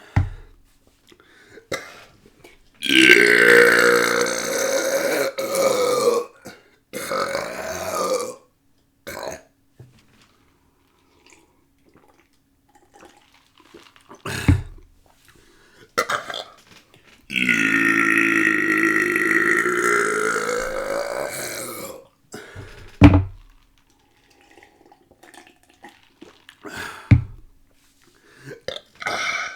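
Deliberate long belches: a drawn-out burp of about three seconds and another of about five, with a shorter burp between them and several brief sharp burps or gulps.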